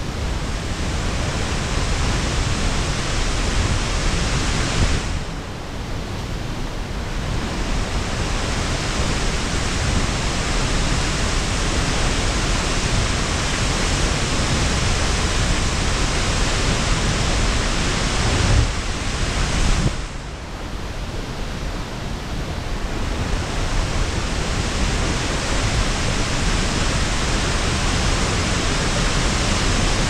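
Steady roar of a tall waterfall plunging into its plunge pool. The roar dips briefly twice, about five seconds in and again about twenty seconds in, and then comes back up.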